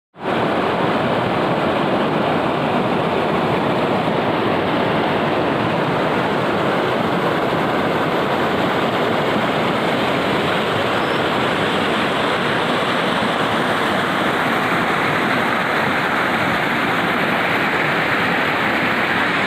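Mountain river rushing over rocks: a steady, loud, even rush of water with no let-up.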